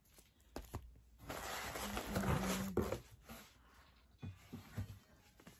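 Rustling and handling of a cardboard shipping box and packaged albums as they are lifted out, loudest from about one to three seconds in, with a short low tone in the middle and a few light knocks afterward.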